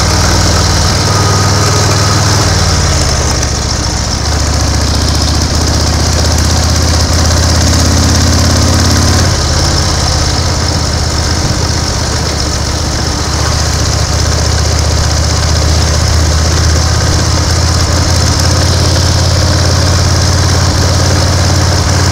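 1930 BSA 770 cc V-twin motorcycle engine running under way, a steady note that shifts in pitch about two to three seconds in and again about nine seconds in.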